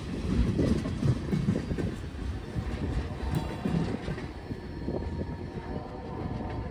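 Freight train rolling past, a steady rumble of wheels on the rails.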